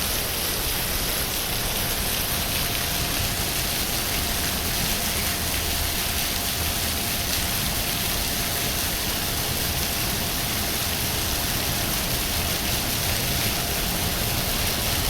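Steady, even rush of water noise with no breaks, from the storm-swollen Illgraben torrent and rain, with a faint steady hum-like tone under it.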